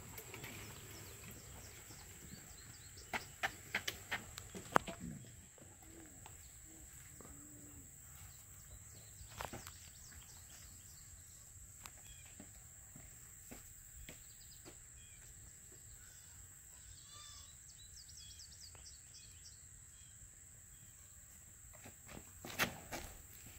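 Quiet summer outdoor ambience: a steady high-pitched insect drone, a few bird chirps around the middle, and a handful of faint sharp clicks and knocks near the start.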